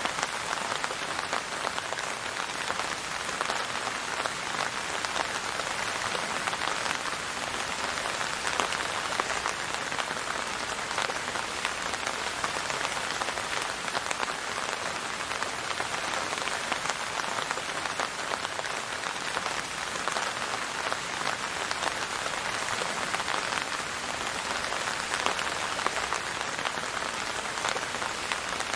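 Steady rain falling and pattering on a surface, a dense hiss of many small drops without a break.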